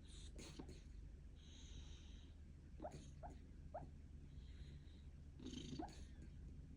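Miniature schnauzer asleep and snoring faintly: soft breaths every second or two, with a few short high squeaks through the nose.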